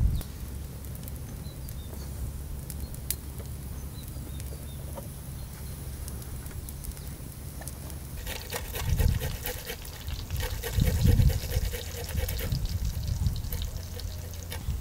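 Eggplant slices sizzling and crackling in hot oil in a pot, starting about eight seconds in and dying down a few seconds later, with a couple of soft knocks as they are laid in. Before that, only a steady low rumble.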